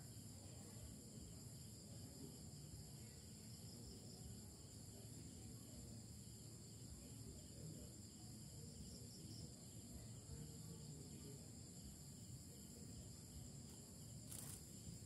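Faint, steady high-pitched trilling of crickets at night over a low background rumble, with one sharp click near the end.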